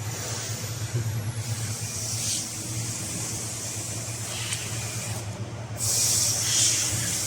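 Fiber laser welding machine humming steadily, with short bursts of hissing and a longer, louder hiss about six seconds in, as it welds aluminum under shielding gas.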